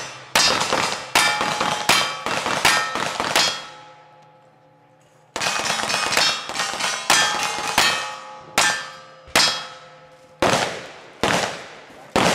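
Revolver shots fired in quick succession at steel targets: each sharp crack is followed by the ringing clang of a struck steel plate. A fast first string ends a few seconds in, and after a pause of about a second and a half the shots resume at a steady pace of roughly one every three-quarters of a second.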